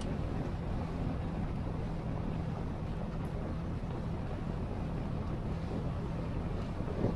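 Outrigger boat's engine running steadily under way, a low even drone, with wind on the microphone and water rushing past the hull.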